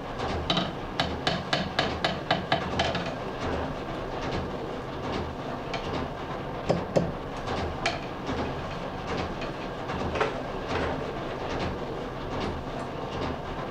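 Small hammer striking steel scissors on the bench: a quick run of light metallic taps for the first few seconds, then scattered single taps. These are the blows used to set and straighten (dress) scissors by hand.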